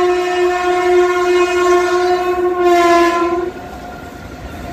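Indian Railways electric locomotive sounding one long horn blast as it runs through the station, the chord dropping slightly in pitch a little over a second in and cutting off about three and a half seconds in. After that comes the quieter rumble and clatter of the freight wagons rolling past.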